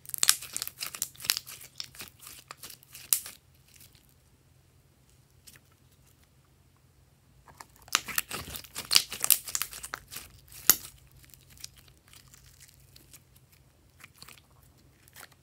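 Glossy metallic slime being squeezed and stretched between the fingers, crackling and popping with trapped air. The crackling comes in two spells of about three seconds each, one at the start and one from about halfway through, with a few scattered pops near the end.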